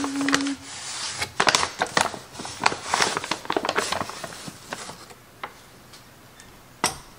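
Rustling of a paper flour bag and a measuring cup scooping and scraping through the flour, a dense run of small crackles and clicks, then a quieter stretch and a sharp knock near the end as the cup meets the stainless mixing bowl.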